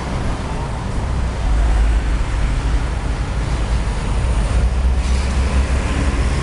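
Buses and road traffic passing: a steady low engine and tyre rumble under a hiss of road noise, with no horn sounding.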